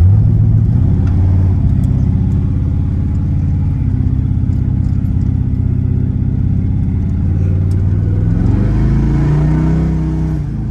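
Twin-turbocharged 383 stroker V8 of a 1955 Chevrolet 3100 pickup running under light load at low speed. About eight seconds in, its pitch rises as the truck accelerates.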